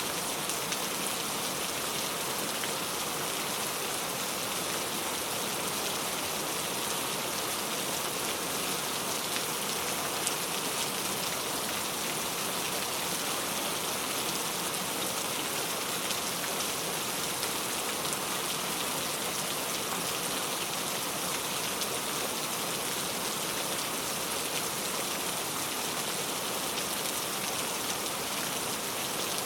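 Heavy rain falling steadily, a dense even hiss of countless drops hitting a surface.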